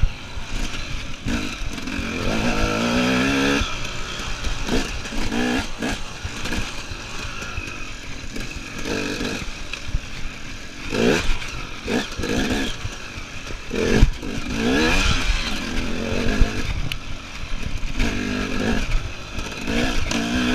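KTM EXC enduro motorcycle engine revving up and falling back again and again as the throttle is worked, with a few sharp knocks and rattles from the bike over rough ground.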